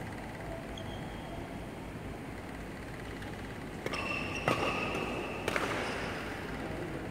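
Badminton rackets striking a shuttlecock in a doubles rally: three sharp hits, about four, four and a half and five and a half seconds in, with a high steady squeal between the first and the last.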